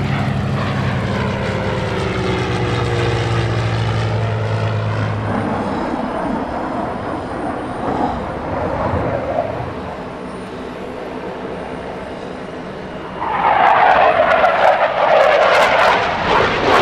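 Propeller aircraft flying past in formation, a steady engine drone, for the first five seconds or so; then the jet noise of an EF-18 Hornet fighter's twin turbofans, distant at first and suddenly much louder about thirteen seconds in as the jet climbs steeply, staying loud to the end.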